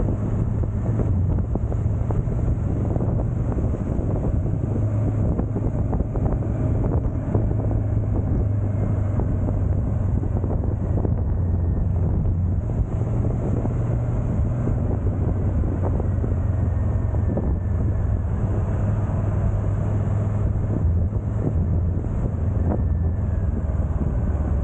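Motorcycle engine running at a steady cruising speed, a constant low drone, with wind buffeting the microphone.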